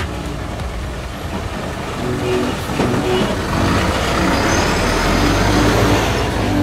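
Hino flatbed car-carrier truck driving slowly past, its engine and road noise growing louder as it comes closest near the end.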